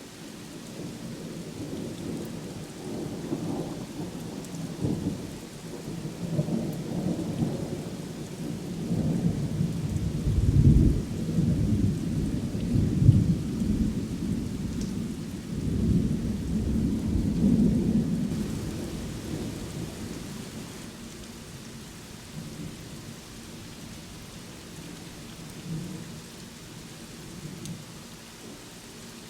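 Thunder rolling over steady rainfall: a low rumble builds, peaks loudest about ten to thirteen seconds in, swells again a few seconds later, then dies away and leaves the rain hiss.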